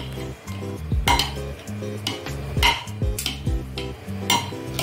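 A metal ladle stirs noodles in a pot of boiling water, knocking and scraping against the pot several times. Background music with a steady beat plays underneath.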